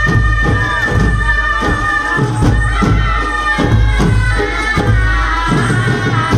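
Live Chhau dance music: a reed pipe carries a high, wavering melody over repeated beats of large drums.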